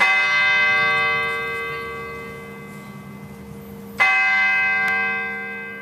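A large church bell struck twice, about four seconds apart; each stroke rings out and slowly fades.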